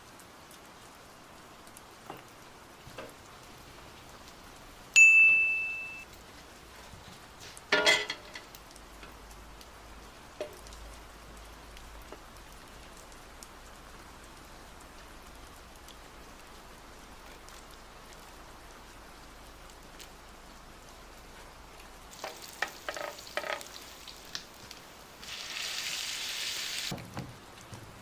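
Food frying softly in a pan, a steady low sizzle. A single ringing metallic clink comes about five seconds in, a clatter of utensils a few seconds later, a few clicks near the end, then a brief louder burst of hiss.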